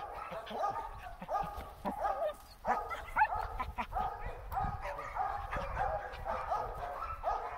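A dog yipping and whining over and over in short, rapid cries, about three a second: the excited noise of a dog overjoyed to be out on a walk. A few knocks and rustles from the play come about three seconds in.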